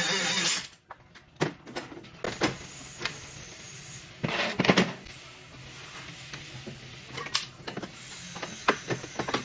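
A loud steady noise cuts off about half a second in. Then come scattered knocks and clatters, like parts and tools being handled, the loudest cluster about four and a half seconds in.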